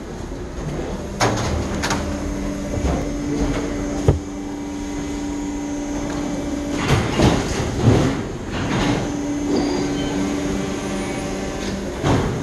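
Steady machine hum with a low tone, broken by a few sharp knocks and, around the middle, a cluster of clattering, rustling bursts.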